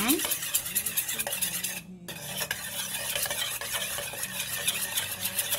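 A metal spoon beating a raw egg in a stainless steel bowl: quick, continuous scraping and clinking of spoon against steel, with a brief break about two seconds in.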